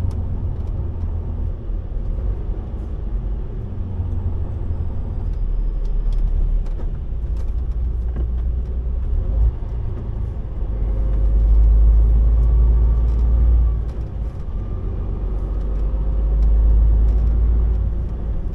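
Truck engine and road noise heard from inside the cab, a steady low rumble that grows louder about ten seconds in and again near the end as the truck pulls away.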